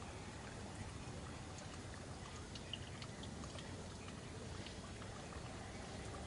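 Steady low background rush with faint scattered clicks and a few brief high chirps.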